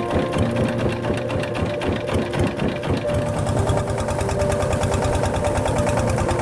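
Motorboat engine running steadily with a fast, even clatter.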